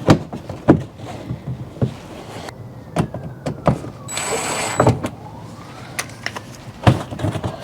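Hands working on a van's fog light through the wheel-well access hole: a run of sharp clicks and knocks of plastic parts, with a short burst of hiss about four seconds in.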